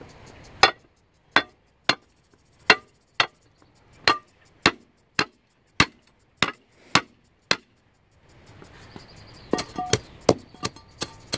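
A brick being knocked down into its pea-gravel bed to bring it level: about a dozen sharp, evenly paced knocks, roughly two a second. About two seconds after the knocks stop, a quicker run of lighter clinks with some ringing begins.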